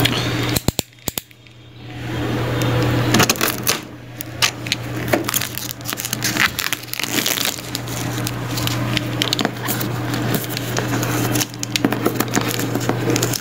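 Blue utility knife working along the taped edge of a cardboard router box: a quick run of sharp clicks about a second in, then dense crackling of tape and cardboard under the blade, over a steady low hum.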